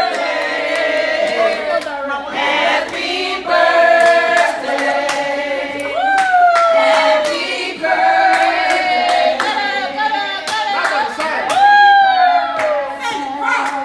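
A group of people singing together, with held notes that slide in pitch, and hands clapping along.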